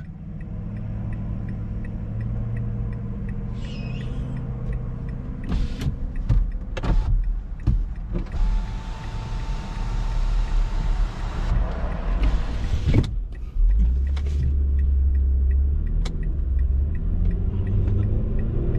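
A car running with a steady low rumble, with several sharp knocks and clicks in the middle and a hissing stretch partway through.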